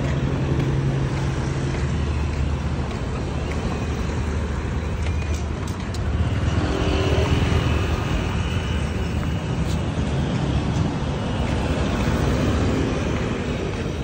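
Road traffic, with car and motorbike engines running steadily. A motorbike passes close by and gets louder about halfway through.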